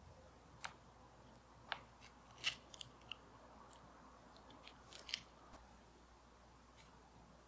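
Hand-stitching leather over a wooden handle: needle and thread passing through the leather and being pulled tight, heard as a handful of short, sharp clicks and snaps, the loudest about two and a half seconds in, over a quiet room.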